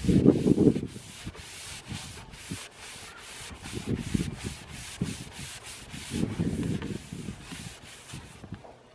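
A paper towel rubbed back and forth over a hazy car headlight lens, about three scrubbing strokes a second, wiping a film off the lens.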